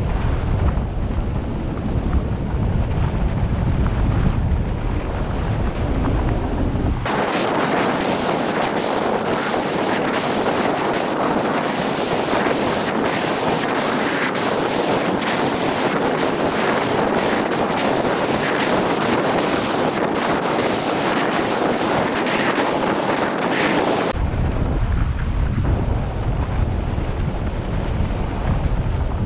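Airflow buffeting the microphone of a wing-mounted camera on a hang glider in flight: a steady low rushing rumble. About 7 seconds in it switches abruptly to a higher, hissing rush with the low rumble gone, where the flight is played back sped up, and about 24 seconds in it switches back just as abruptly.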